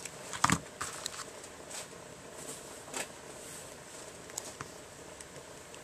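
Scattered faint clicks and scrapes of the PVC coating being pried and peeled off the end of LED tape light with a wire stripper and fingers, the sharpest click about half a second in.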